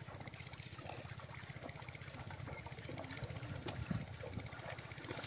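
Pond water sloshing and trickling as people wade through it, over a steady, rapid low pulsing.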